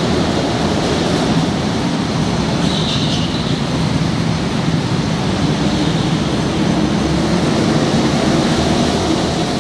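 Go-kart engines running steadily as karts lap an indoor track, a continuous loud din with a low hum.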